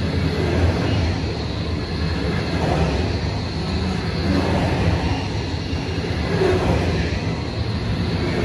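Coal hopper wagons of a freight train rolling past close by: a steady, continuous rumble of steel wheels on the rails.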